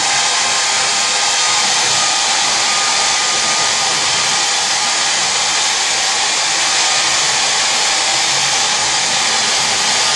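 Handheld hair dryer blowing steadily on wet hair: an even, loud rush of air with a faint steady whine.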